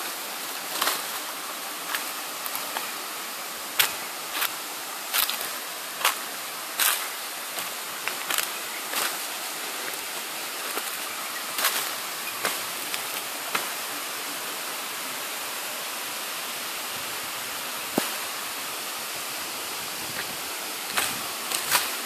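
Steady rushing of a waterfall, with footsteps on dry leaves and rock as sharp irregular knocks about once a second; the steps pause for several seconds about two-thirds through and resume near the end.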